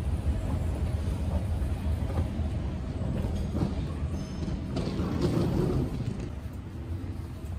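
Steady low rumble of background noise in a large glass-roofed railway-station hall, easing off about six seconds in.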